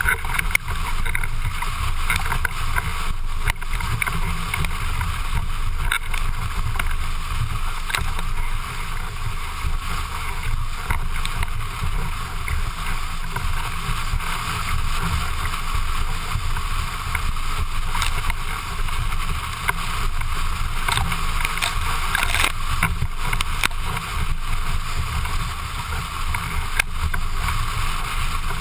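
Slalom windsurf board planing fast over chop: a steady rush of wind on the microphone and water hissing under the hull, with occasional sharp slaps as the board hits waves.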